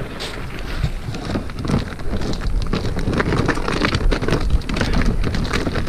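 Footsteps crunching through snow on lake ice: a dense, irregular crackling noise.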